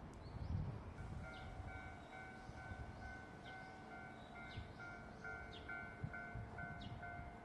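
Japanese level crossing warning bell sounding: an electronic ding that starts about a second in and pulses about two and a half times a second. A low rumble comes just before it.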